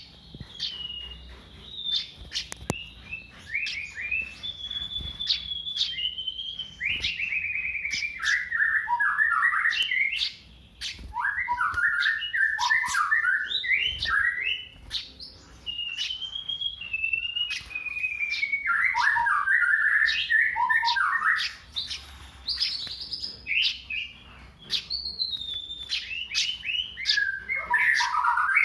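Eurasian tree sparrow calling in repeated phrases. Each is a whistled note sliding down in pitch, then a quick jumble of chirps, and they come every five to seven seconds with sharp chips in between.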